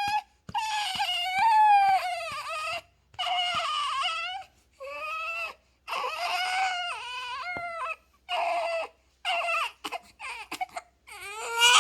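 Four-week-old newborn baby crying in a string of about eight short, high-pitched wails with brief breaths between them.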